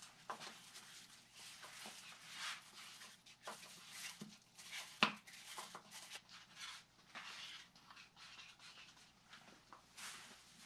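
Epoxy resin being spread and worked into carbon-fibre cloth in a mold by hand: irregular rustling, scraping strokes with one sharp click about five seconds in.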